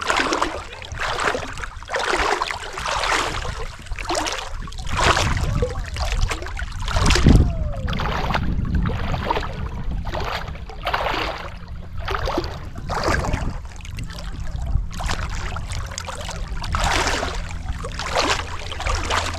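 Water sloshing and splashing in repeated strokes, about one a second, as a one-person fishing pontoon is paddled across a lake, over a low steady rumble. The strongest splash, with a thump, comes a little past the middle.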